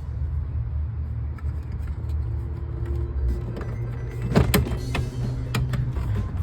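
Plastic dashboard trim being fitted, with a few sharp clicks and knocks, the loudest about four and a half seconds in, over a steady low rumble.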